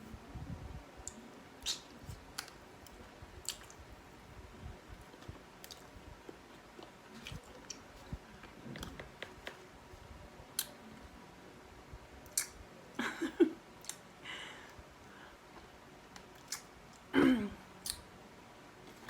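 A person chewing and eating chicken wings close to the microphone, with scattered wet mouth clicks. Two louder short noises stand out, one about thirteen seconds in and one near the end.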